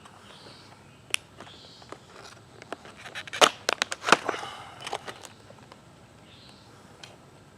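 A quick run of sharp clicks and crackles a few seconds in, with a single click before it, over a faint outdoor background.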